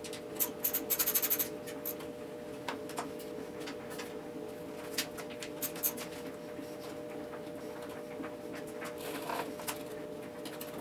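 Hand-tool work on a dirt bike: scattered sharp clicks and light knocks of tools and parts, with a quick run of clicks about a second in, over a steady hum.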